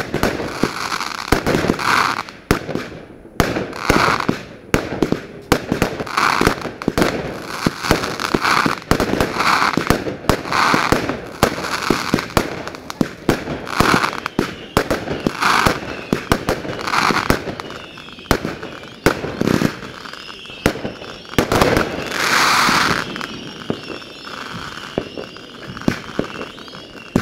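Fireworks display: rapid sharp bangs and crackles, with repeated short hissing bursts and one louder burst about three-quarters of the way through. A wavering high whistle runs through the last few seconds.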